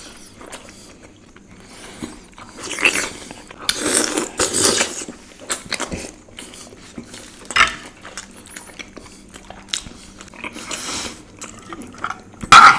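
Close-miked eating sounds: a person chewing and biting Indian sweets, with irregular wet mouth noises and sharp clicks, the loudest burst a few seconds in and a sharp click near the end.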